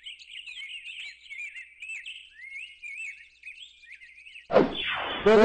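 Small birds chirping and twittering, many short rising and falling calls overlapping. About four and a half seconds in, a sudden loud downward swoosh cuts in, and a steady pitched tone follows.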